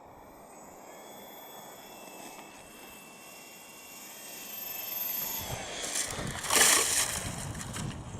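Twin-motor model seaplane running with a steady high whine that grows louder, then a loud rushing splash about six and a half seconds in as its hull meets the water on touchdown.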